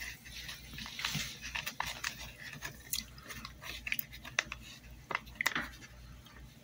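A hand swishing and rubbing a piece in a plastic tub of copper sulfate solution: small splashes and drips, with scattered light clicks against the tub.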